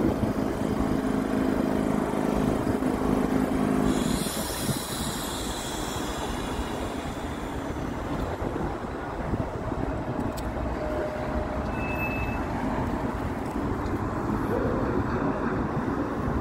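A Blackpool Balloon double-decker electric tram passing close by on street track, its wheels rumbling over the rails with a steady hum for the first few seconds and a brief hiss a few seconds in, then running on away.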